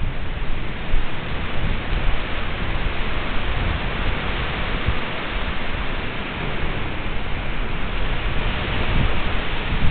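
Tropical-storm noise: a steady hiss of heavy rain and breaking surf, with irregular low rumbling gusts of wind buffeting the microphone.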